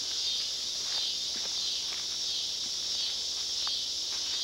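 A steady high-pitched insect chorus, like crickets, with a few faint footfalls and ticks scattered through it.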